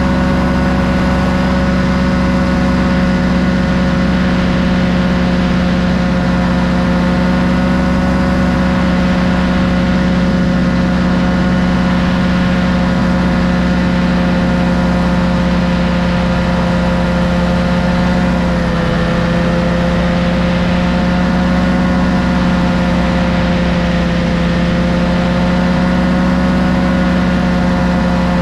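Two-seat paramotor trike's engine and caged propeller running steadily in flight, the pitch easing down slightly about two-thirds of the way through.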